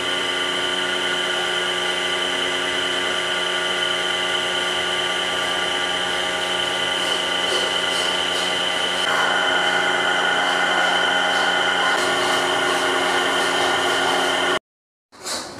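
Manual milling machine running steadily with a gear whine, its spindle turning a spoon in a glass of coffee. The whine changes pitch about nine seconds in, and the sound cuts off suddenly about a second before the end.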